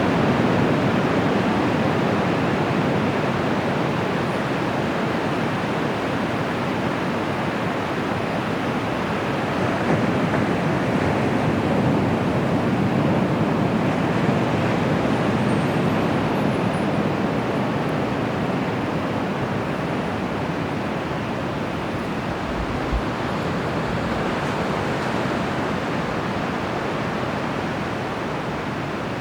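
Surf of the Bay of Bengal washing onto the beach: a steady rush of waves that swells and eases slowly.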